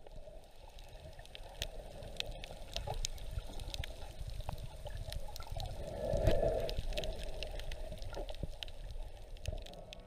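Water heard underwater during snorkelling: muffled sloshing and gurgling with a low rumble and many small clicks and crackles, swelling louder about six seconds in.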